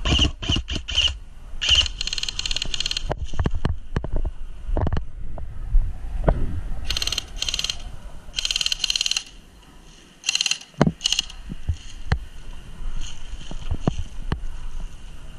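Airsoft electric rifles firing several short full-auto bursts of rapid clicking, with scattered low thuds in between.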